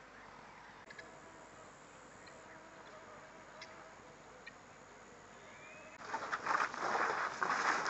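Faint waterhole ambience with a few scattered bird chirps. About six seconds in, a herd of elephants comes running in: a sudden loud, dense mass of footfalls and scuffing.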